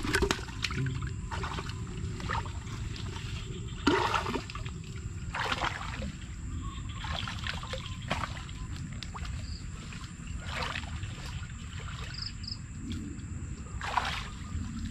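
Shallow muddy water splashing and sloshing as a person wades through it, in irregular splashes every second or two.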